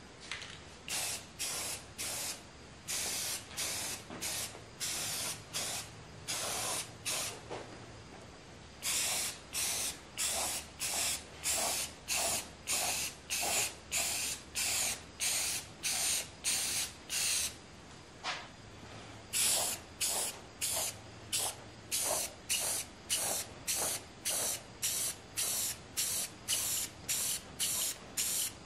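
Aerosol spray paint can spraying in short, quick bursts, about two a second, with a couple of brief pauses, as primer and then colour are put onto metal locker doors.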